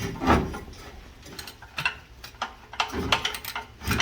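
Scattered metal clicks and knocks of hand tools being worked on a truck engine, with a ratchet-like clicking.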